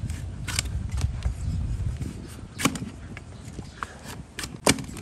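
A large flat hoof-trimming knife shearing through a donkey's overgrown hoof horn against a wooden block. It gives a few sharp cracks with rough crunching between them, and the loudest crack comes near the end.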